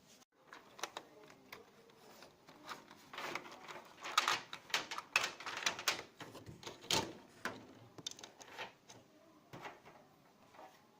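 Irregular clicks, taps and light rattles of small plastic parts being handled as a battery-operated lamp assembly is fitted into a Lima model HST power car body; the clicking is busiest in the middle and thins out near the end.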